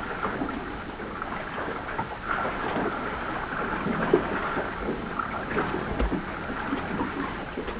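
Water rushing and slapping against the hull of a Hunter 376 sailboat under way, heard from inside the cabin, with scattered small knocks.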